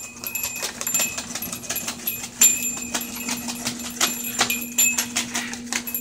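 Military macaw flapping and clambering on a hanging branch-and-pipe swing: irregular light clicks and taps of claws, beak and swing parts, with a steady low hum underneath.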